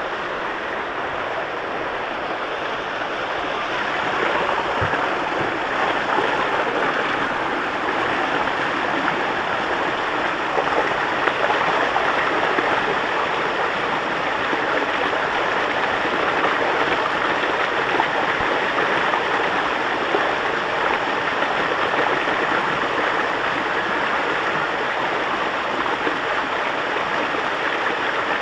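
Steady rush of water flowing down a water park waterslide, growing louder about four seconds in.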